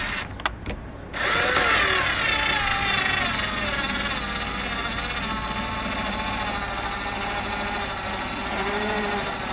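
Cordless drill driving a screw into wood. After a few short clicks, the motor starts about a second in with a whine that falls in pitch as the screw bites, then runs on steadily.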